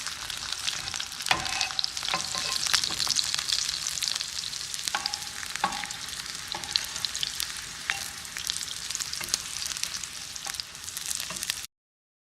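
French fries deep-frying in hot oil: a dense, steady sizzle with scattered pops and crackles, cutting off suddenly near the end.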